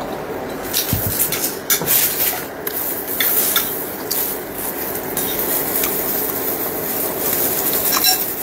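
Chopsticks clicking and scraping against a ceramic bowl as noodles are stirred and eaten, with chewing close to the microphone.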